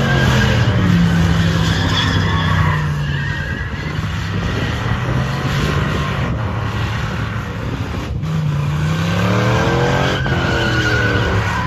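Pickup truck doing a burnout: engine held high in the revs while the rear tyres spin and squeal. The revs dip and climb again about nine seconds in.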